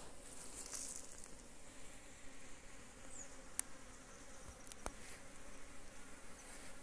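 Honey bees buzzing around their hives, a faint steady hum, with two small sharp clicks about three and a half and five seconds in.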